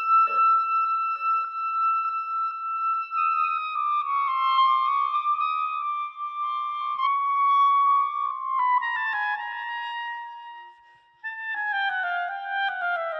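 Music: one sustained melodic tone, held high at first, then sliding down in pitch in small steps. It fades almost out about ten and a half seconds in, then comes back and slides lower.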